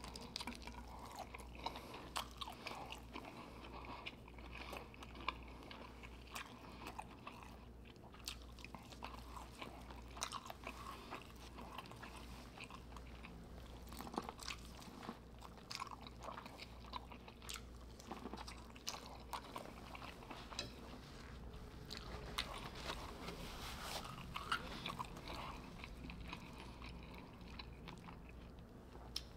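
A person eating a seafood boil close to the microphone: chewing, biting and small crunches, with many soft, quick clicks and wet mouth sounds.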